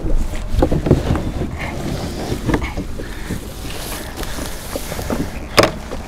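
Knocks and scrapes of a small plastic boat's hull shifting against the bank as a person climbs out of it, with one sharp, loud knock near the end, over wind rumbling on the microphone.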